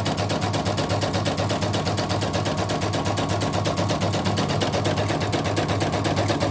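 Yoko embroidery machine stitching at speed during a post-repair test run: the needle mechanism makes a rapid, even clatter of stitches that runs without a break.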